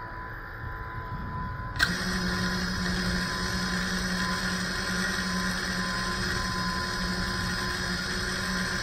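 FPV quadcopter's brushless motors arming with a sharp click about two seconds in, then spinning at idle with a steady hum while the drone sits on the ground.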